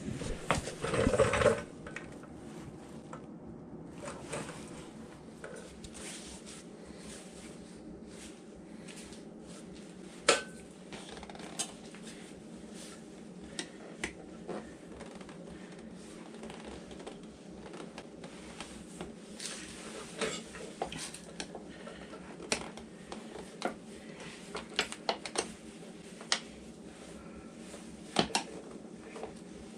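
Metal hand tools clinking and knocking. Irregular light clinks, with a cluster of louder knocks about a second in, over a steady low hum.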